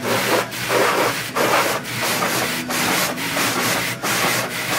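Hanging cloth strips and brushes of an automatic car wash swishing and rubbing over the car's windshield, heard from inside the car, in repeated sweeps about two to three a second over a hiss of water spray.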